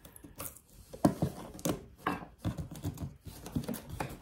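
Packing tape being cut on the last side of a cardboard shipping box: irregular scrapes and sharp taps of the blade and hands against the cardboard.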